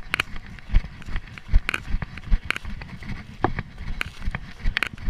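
Running footsteps on a forest floor of dry fallen leaves: a steady rhythm of thuds with leaves crunching and rustling at each stride, picked up by a camera worn on the runner's chest.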